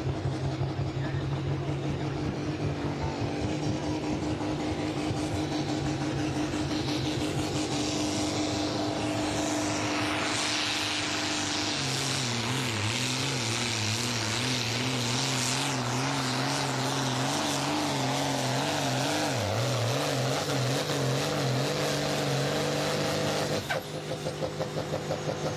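Diesel farm tractor engine pulling a sled at full load, a loud steady drone. About halfway through, the engine note starts wavering up and down as it works against the sled. The sound changes abruptly near the end.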